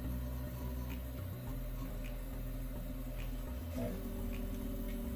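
Original Prusa i3 3D printer running as it prints the brim of the first layer: its motors give steady humming tones that shift pitch about four seconds in, with faint ticks about once a second.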